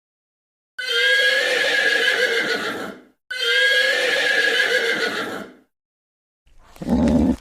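Horse whinnying: two long calls of about two seconds each, with a short gap between them, and a shorter, lower sound starting near the end.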